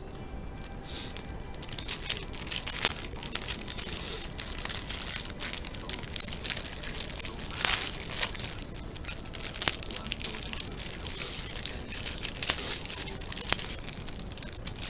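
Thin plastic bread bag crinkling and crackling as it is handled and pulled open by hand, an irregular run of sharp crackles with a few louder ones.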